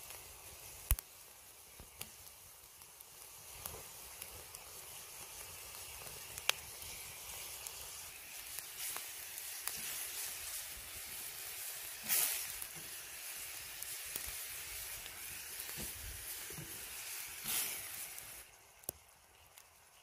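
Wood campfire burning under a pan: a steady hiss with scattered sharp crackles and pops, swelling louder twice in the later part, then dropping away near the end.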